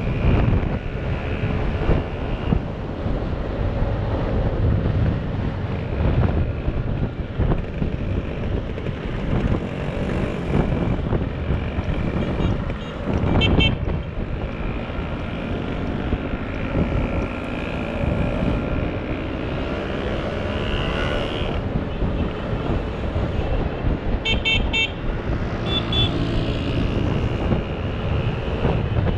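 Motor scooter engines running on the road, rising and falling with the throttle. Short horn toots come in several times near the end.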